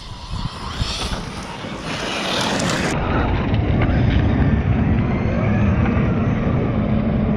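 Large brushless electric RC trucks driving hard over loose gravel and dirt. The motors whine up as they accelerate, twice in the first few seconds, then a louder, steady low rumble of running motors and tyres on stones takes over from about two seconds in.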